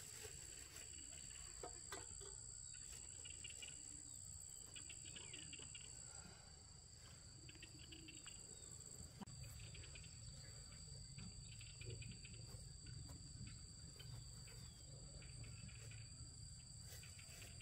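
Near silence with faint insect chirping: short trains of rapid chirps recur every second or two over a steady high-pitched whine.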